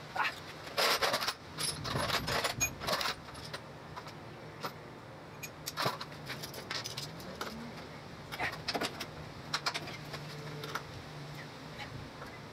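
Metal hand tools clinking and a socket wrench clicking as lug nuts are worked loose on a golf cart's wheel. The clicks come in irregular clusters, busiest in the first few seconds.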